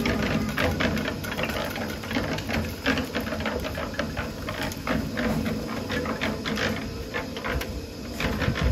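Drum concrete mixer turning, the wet mix and gravel inside clattering in quick, irregular knocks over a steady low motor hum, as the drum is tipped to empty.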